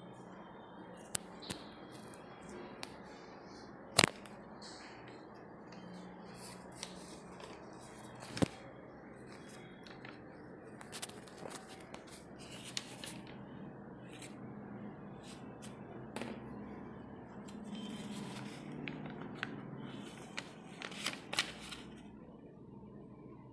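Paper greeting card handled and its pages turned: scattered paper rustling and small taps, with two sharp clicks about four and eight seconds in.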